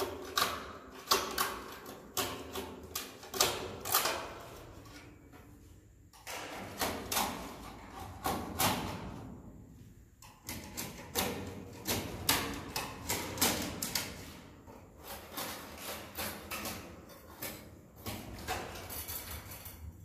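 Swiftlets making sharp clicking calls in fast, irregular runs that echo off the bare concrete walls of the nest house. There are brief lulls about six and ten seconds in.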